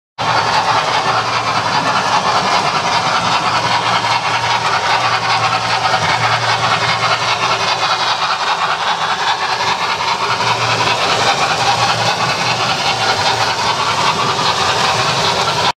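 Model train running along the layout's track close by: a steady rolling hiss of wheels on rail, with a low hum underneath.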